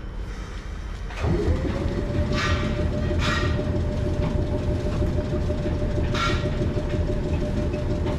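Onboard machinery of a Sangi Railway ED45 electric locomotive, standing still, starts about a second in: a hum that quickly rises in pitch, then holds one steady tone over a low rumble. Three short hisses come over it.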